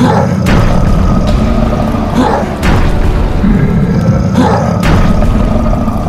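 Cartoon explosion sound effects: a series of booms, about six in a few seconds, over background music.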